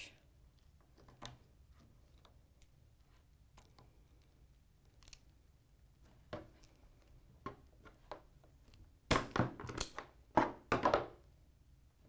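Self-adjusting wire stripper stripping the insulation off a solar PV cable: small clicks of handling, then two loud noisy clusters about nine and ten and a half seconds in as the handles are squeezed and the insulation is pulled off.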